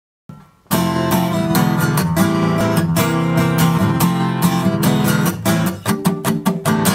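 Steel-string acoustic guitar strummed in a steady rhythm, starting about half a second in; near the end the strums become short and choppy.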